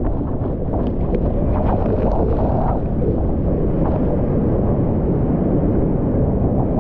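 Loud, steady roar of whitewater rapids rushing around a kayak. In the first few seconds there is splashing, with spray and water buffeting the microphone.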